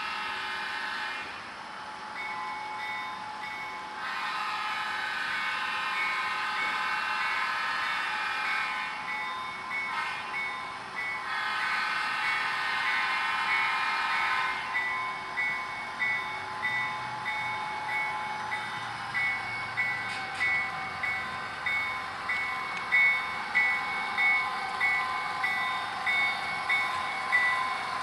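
Sound-equipped model diesel locomotive of an intermodal train blowing several long horn blasts and a short one. After about halfway it gives way to a regular ringing beat of about three strikes every two seconds, loudest near the end.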